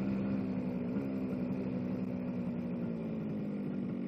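Small two-stroke motorcycle engine running at a steady speed, its pitch lifting slightly about a second in and then easing back a little.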